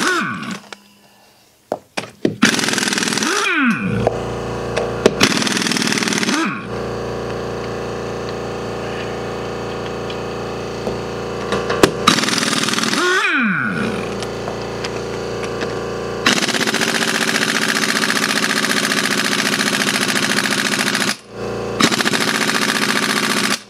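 Pneumatic impact wrench run in reverse on the wheel lug nuts, hammering in several bursts with a rising and falling whine as the air motor spins up and down. The longest burst of hammering, near the end, is on a stubborn nut that is slow to break loose.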